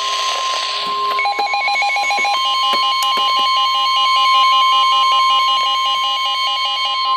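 Weather radio emergency alert tone: a steady single tone near 1 kHz, the NOAA Weather Radio 1050 Hz warning alarm that comes before a warning is read. From about a second in, a fast-pulsing electronic alarm beeps over it, about ten beeps a second, shifting in pitch about two seconds in.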